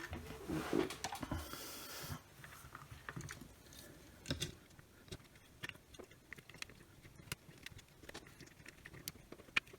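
Scattered light clicks and taps of small parts being handled while a cordless LED flashlight is put back together, with a sharper click about four seconds in and another near the end.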